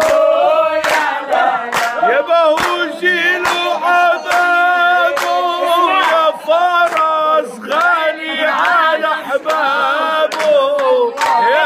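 A man and a woman singing an Arabic folk song together without instruments, with long wavering held notes. Hand claps keep a steady beat a little under a second apart.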